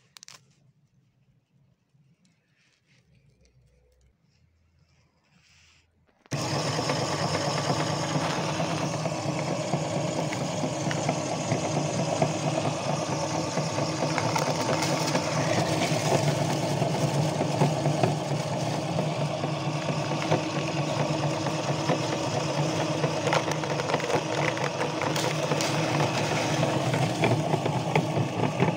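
Motor-driven meat grinder starting suddenly about six seconds in and then running with a steady hum, crackling as it grinds chocolate-covered cookies into crumbs.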